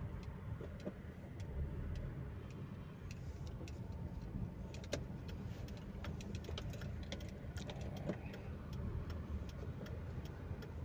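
Honda City with a newly replaced automatic transmission on the move, heard from inside the cabin: a steady low engine and road rumble, with scattered light clicks.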